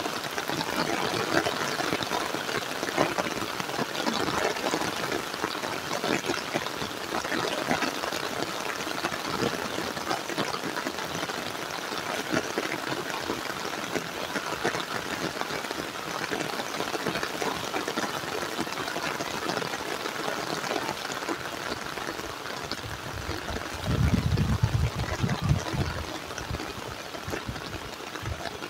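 Heavy rain falling steadily, a dense, even hiss. About 24 seconds in there is a low rumble for a couple of seconds.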